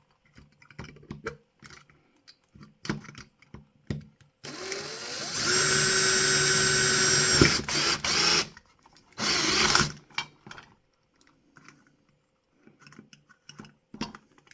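Small power drill drilling out a rivet in a model coach. Light clicks of handling first. About four seconds in, the motor spins up and runs with a steady whine for about three seconds before stopping. A second short burst of drilling follows about nine seconds in.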